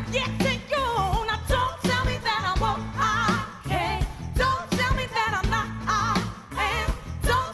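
Soul-pop song performed live: a woman's lead vocal with vibrato and backing singers, over a band with drums and bass.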